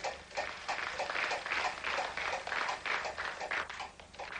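Studio audience applauding and clapping, swelling in the middle and dying down near the end.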